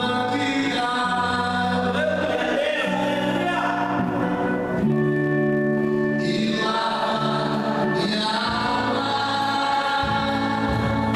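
Choir singing a gospel praise song in Portuguese, with long held notes that move in steps from chord to chord.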